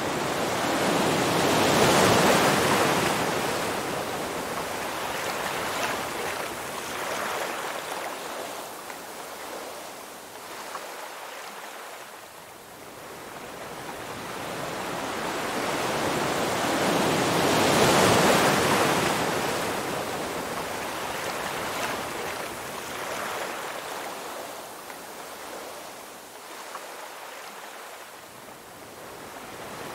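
Ocean waves on a beach: one wave breaks and washes up about two seconds in and another a little past halfway, each swelling to a peak and slowly fading away.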